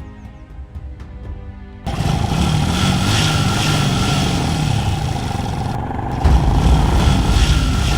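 Motorcycle engines revving hard, cutting in suddenly about two seconds in and holding over dramatic background music, with a heavy bass joining near the end.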